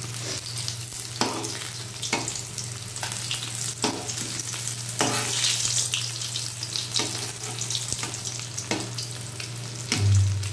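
Battered topse (mango fish) pieces sizzling as they shallow-fry in hot oil in a kadai, with a metal spatula scraping and tapping against the pan every second or two as the pieces are turned. A steady low hum runs underneath, and there is a short low bump near the end.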